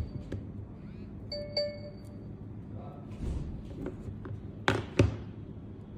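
Samsung Galaxy phone's call-hold chime for an incoming call during a Google Duo call, a short bell-like tone sounding once about a second and a half in. Two sharp knocks follow near the end, the loudest sounds here.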